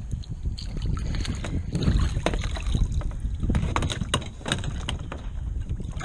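Water sloshing and splashing around a kayak, with wind rumbling on the microphone and scattered sharp clicks.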